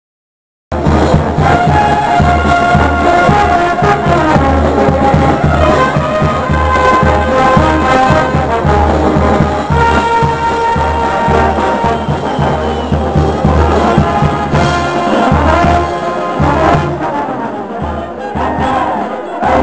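Brass band of sousaphones, trumpets and trombones with a drum keeping the beat, playing a dance tune; it starts suddenly about a second in.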